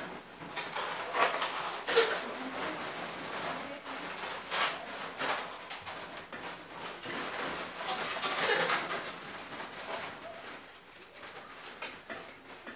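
Twisted latex balloon flowers rubbing and squeaking against one another as they are moved about, in irregular squeaky rustles every second or so.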